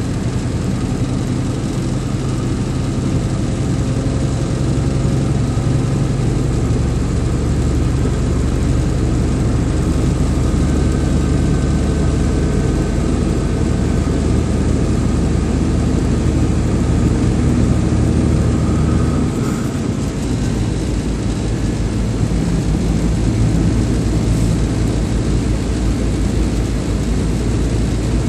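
Vehicle engine running steadily under load while climbing a mountain road, with road and wind noise. About twenty seconds in the engine's low note changes and takes on a faster, even pulse.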